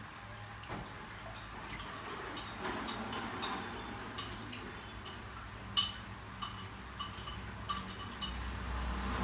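Irregular light clicks and taps, a dozen or more scattered through, the sharpest a little before the six-second mark. A low rumble builds near the end.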